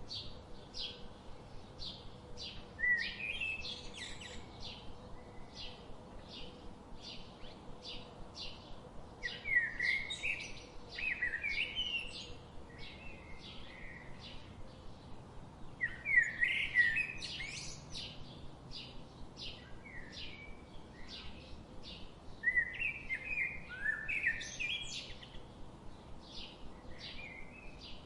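Birds chirping: a short, high chirp repeats about twice a second, and louder warbling song phrases of a second or two break in about every six or seven seconds.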